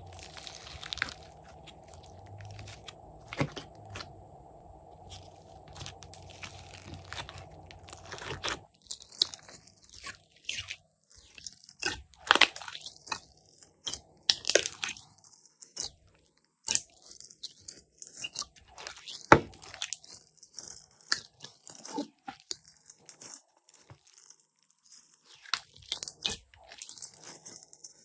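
Hands squishing, pressing and poking glossy slime, giving sharp clicks, crackles and pops in quick irregular runs. For the first eight seconds or so a low steady hum runs underneath; after it stops, the pops stand out with quiet gaps between them.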